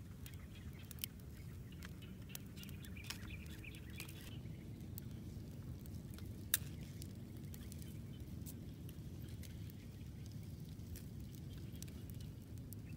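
Small open wood fire crackling, with scattered sharp pops, the loudest about six and a half seconds in, over a low steady rumble.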